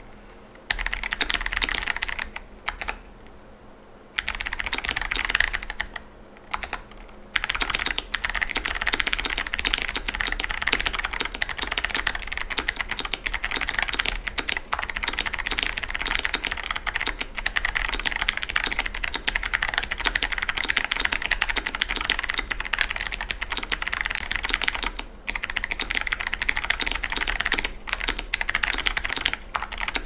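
KBDfans KBD67 Lite 65% mechanical keyboard with clicky Kailh Box Jade switches being typed on fast, a dense run of sharp, crisp clicks. The typing stops briefly twice in the first seven seconds, then runs on almost without a break.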